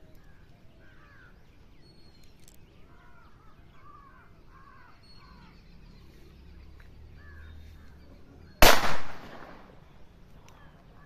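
Birds calling in repeated short, arching calls, then a single .32 revolver shot about eight and a half seconds in, the loudest sound, with a short ringing tail.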